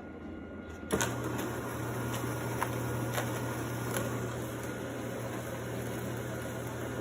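A steady low machine hum that starts suddenly about a second in, with a few light clicks over it.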